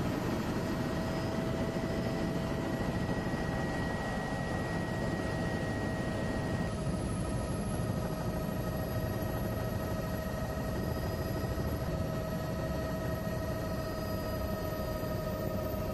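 Steady aircraft engine noise heard from on board: a dense low rumble with a steady high whine over it, whose tones change slightly about halfway through.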